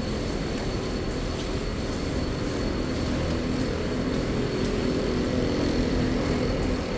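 Steady low rumble of busy public-space ambience with a faint murmur of voices, as pedestrians stream out of a metro station exit, plus a thin steady high-pitched whine throughout.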